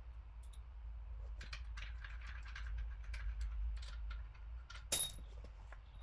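Small metallic clicks and ticks of hand tools working on the engine's cylinder head bolts, ending in one sharp metallic click with a short ring near the end, over a steady low hum.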